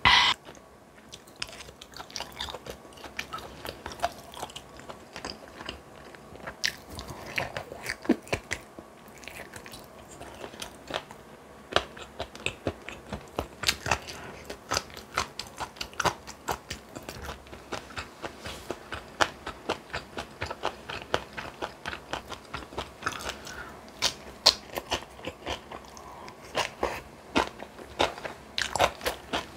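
A person chewing and crunching food close to the microphone, with many short crisp crunches and clicks at an uneven pace. A brief louder noise comes right at the start.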